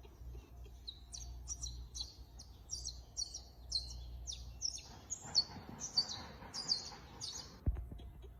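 Small birds chirping, short high calls repeated two or three times a second, many of them falling slightly in pitch. Under them is a low rumble in the first half and a sharp click near the end.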